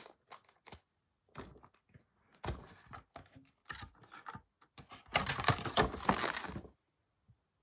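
Scattered small clicks and taps of hands handling things, then about a second and a half of rustling, the loudest part, about five seconds in.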